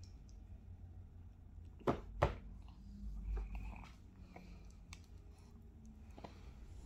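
Two sharp clicks about two seconds in, a third of a second apart, over a low steady hum.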